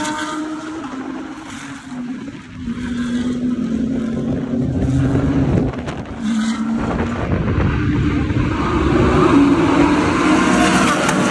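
GT3 race cars driving past at speed, their engine notes shifting in pitch as they go by. In the second half a pack of several cars passes together, the loudest part.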